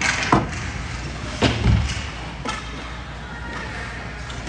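Basketball bouncing on a gym floor: a few scattered thumps, two of them close together about one and a half seconds in.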